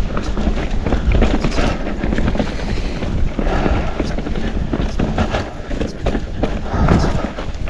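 Mountain bike ridden fast down a dirt trail: wind buffeting the microphone, with the tyres and frame rattling and clattering over bumps in many quick knocks.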